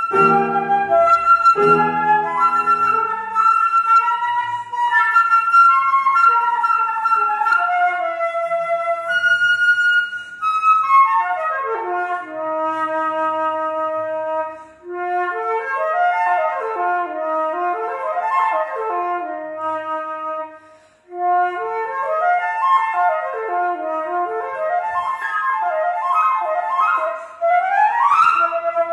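Concert flute with piano accompaniment: piano chords under the flute in the first couple of seconds, then the flute carries on mostly alone in fast runs sweeping up and down, with two short breaks and a quick rising run near the end.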